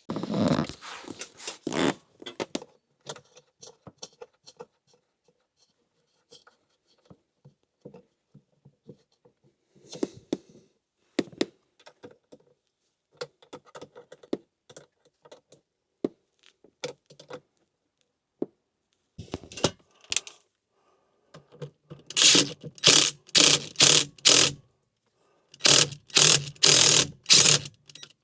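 Hand-tool work on cable connections and fasteners: scattered clicks, scrapes and knocks of metal parts and cables being handled. Near the end come two runs of loud, even mechanical strokes, about two a second, as a fastener is driven in.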